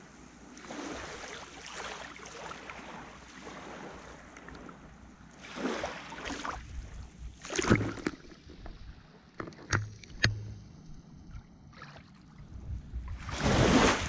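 Sea waves splashing and lapping in uneven surges, with a few sharper splashes in the middle and the loudest surge near the end.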